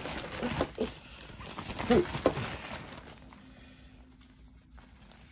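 Nylon pump sack rustling and crinkling as it is handled and pressed to push air into a Therm-a-Rest NeoAir Uberlite sleeping pad, with two short pitched chirps about two seconds in; it goes quieter after about three seconds.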